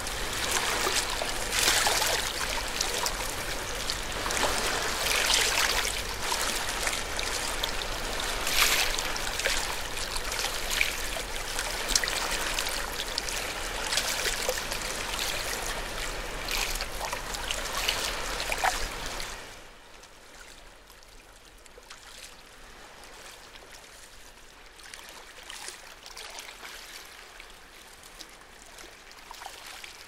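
Water trickling and splashing steadily, then dropping suddenly to a much quieter wash about twenty seconds in.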